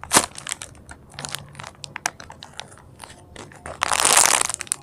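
Plastic wrapping crinkling and crackling as it is handled, in small crackles with a louder stretch of crinkling near the end.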